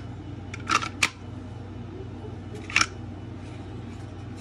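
A few sharp plastic clicks and clacks as a Glock 19X pistol and a molded plastic holster are handled and set down: two close together about a second in, another near three seconds. A steady low hum runs underneath.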